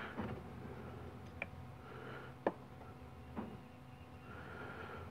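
Three faint clicks about a second apart, the middle one the sharpest, as a caliper and transmission parts are handled on a metal workbench, over a faint steady hum.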